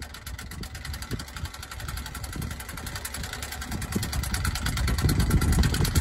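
An engine or motor running steadily with a fast, even pulse, over irregular low rumbling that grows louder toward the end.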